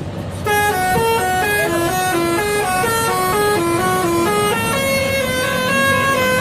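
Bus telolet horn, a set of electric air horns playing a quick tune of held trumpet-like notes, several at once, stepping up and down a few times a second. It starts about half a second in, over the low rumble of the bus.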